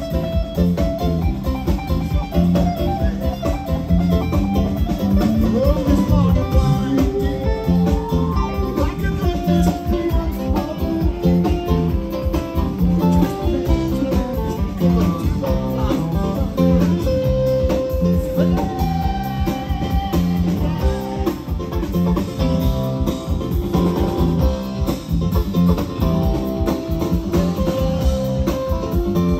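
Live band playing an instrumental passage: a guitar melody over bass and drums keeping a steady beat.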